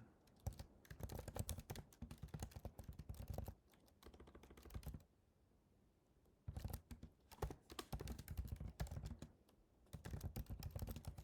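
Typing on a computer keyboard: rapid key clicks in four bursts with short pauses between.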